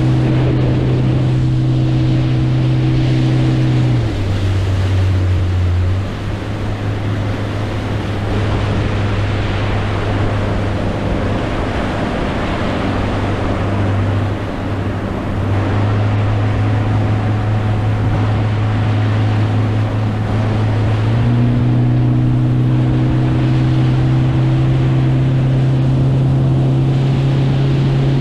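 Motorboat engine running under way, its hum stepping up and down in pitch a few times as the throttle changes, over the rush of water and wind.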